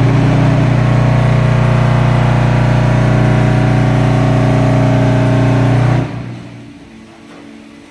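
Zenith 1500 concrete block machine running with a loud, steady, low hum that cuts off abruptly about six seconds in. This is typical of the machine's vibration stage, compacting concrete in the mould.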